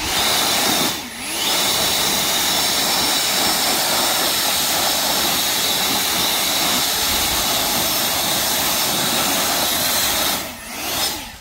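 Ego battery-powered leaf blower running at high power with a steady rush of air and a high whine, blowing leaves out from under bushes. It dips briefly about a second in, then runs steadily; near the end it eases off, gives a short burst and stops.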